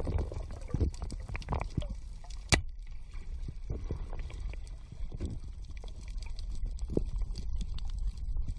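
Underwater sound: a low muffled water rumble with many scattered sharp clicks and knocks, the loudest about two and a half seconds in.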